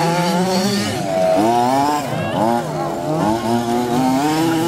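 Small two-stroke petrol engines of 1:5-scale RC off-road buggies and trucks racing, several at once, their pitch rising and falling over and over as they are throttled up and down.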